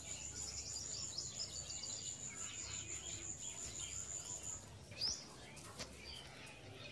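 Faint chirping of small birds, with a steady thin high-pitched whine that stops a little after halfway through and a single rising chirp about five seconds in.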